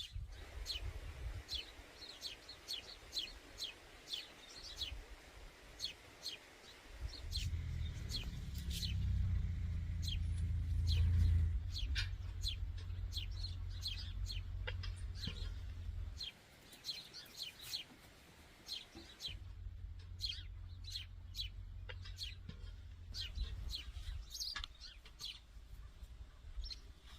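Birds chirping, a quick run of short high chirps again and again, over a low rumble that swells about seven seconds in, drops out around sixteen seconds and comes back a few seconds later.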